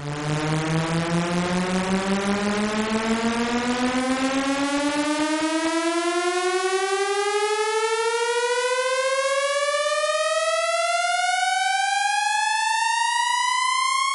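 Synthesized riser sound effect: one buzzy, siren-like tone climbing steadily in pitch for about fourteen seconds, then cutting off suddenly.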